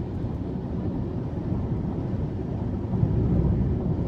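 Steady low road and engine rumble inside a moving car's cabin, swelling slightly about three seconds in.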